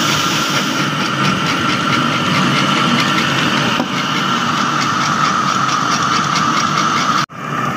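Electric stone flour mill (atta chakki) running while it grinds wheat, a steady mechanical hum with a fast, even rattle over it. The sound cuts out briefly near the end.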